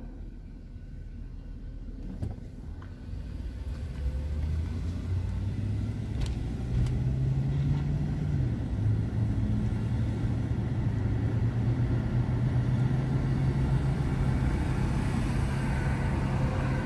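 Car engine and road noise heard from inside the cabin as the car pulls away from a stop and accelerates: the engine note rises in pitch and loudness, dips slightly about eight seconds in as the transmission shifts up, then holds steady at cruising speed.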